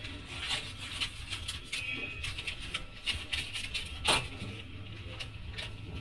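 Handling noises of sweets being packed by hand at a shop counter: light rustling and scraping with scattered small clicks, and one sharper click about four seconds in.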